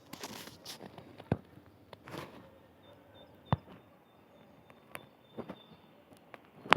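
Footsteps crunching on the forest floor at an irregular slow pace, with a few sharp snaps.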